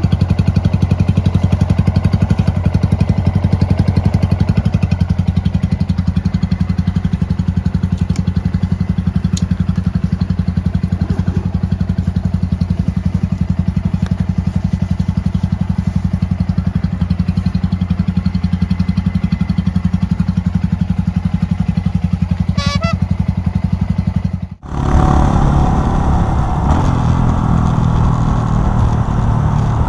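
Honda Monkey 125's single-cylinder four-stroke engine idling steadily. About 25 seconds in, the sound cuts to the bike under way: a louder engine note with wind noise.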